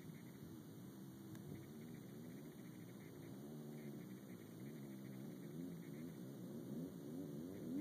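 Faint, distant off-road vehicle engine revving, its pitch rising and dropping again and again, slowly getting louder as it approaches.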